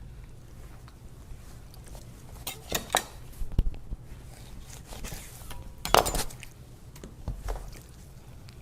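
Knife and kitchenware knocking and clinking while a whole chicken is cut into pieces: several separate strikes, the loudest about six seconds in.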